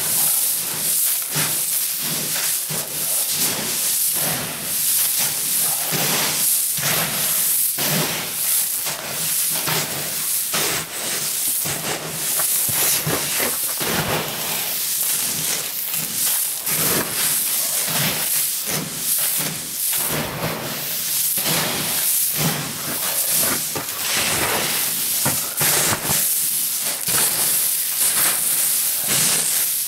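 Dry mixed grain (barley, oats, wheat and sunflower seeds) being stirred by a gloved hand in a tub: a continuous rustling hiss of shifting kernels with irregular swishes as the hand sweeps through.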